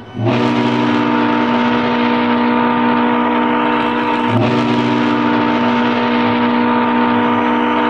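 Ship's steam whistle blowing long, loud blasts: a deep chord of several steady tones over a steam hiss. It starts abruptly, breaks off about four and a half seconds in, and sounds again straight away.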